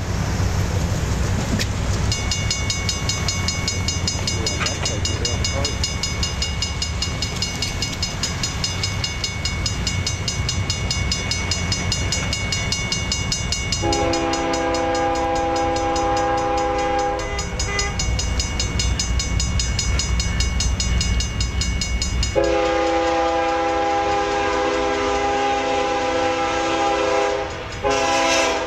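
BNSF GE ES44DC diesel locomotive leading an intermodal freight train on approach: a continuous low rumble of engine and wheels, with the locomotive horn sounding its chord in a long blast a little after halfway and then a longer blast that runs almost to the end. A steady high ringing tone sits above the rumble through most of the first two thirds.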